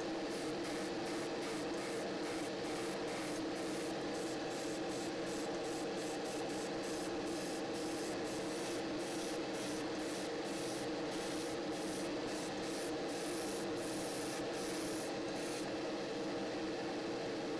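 Airbrush hissing in short, repeated bursts, about two a second, over the steady hum of a spray booth's extractor fan. The airbrush bursts stop near the end, leaving the fan running alone.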